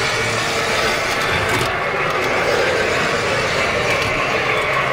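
O-scale three-rail model freight cars rolling past, their metal wheels rattling steadily over the track.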